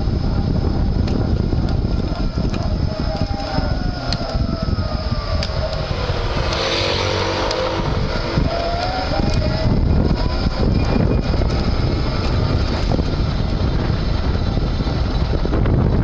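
Front hub-motor whine from a Panasonic ViVi Charge electric-assist bicycle under heavy wind noise while riding. The whine glides down in pitch about three to seven seconds in and climbs again around nine seconds in.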